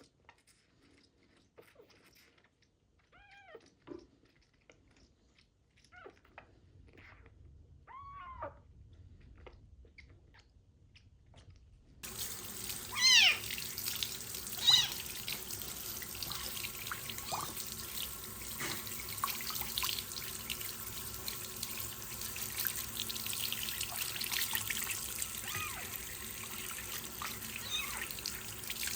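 Kitten meowing during its bath, a few faint meows at first. About twelve seconds in, a water tap turns on suddenly and runs steadily, and the kitten meows loudly twice.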